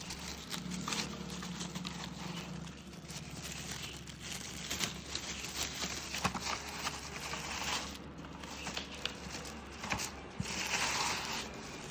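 Polythene bag crinkling and rustling as a keyboard is slid out of it, with scattered light clicks and knocks from the plastic keyboard being handled.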